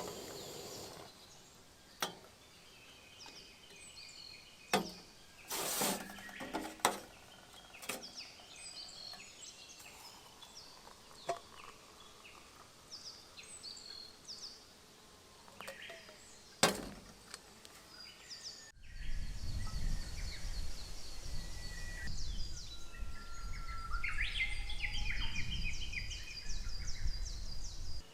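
Wild songbirds singing and trilling, with several sharp knocks and clinks in the first half. About two-thirds of the way through, a low steady rumble starts abruptly and underlies the birdsong.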